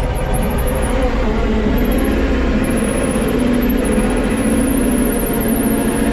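A machine running steadily, a loud, even drone with a low hum.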